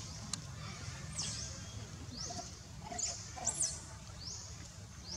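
Forest ambience: a short, high, rising call repeats roughly every half second over a steady low rumble, with a louder pair of high chirps about three and a half seconds in.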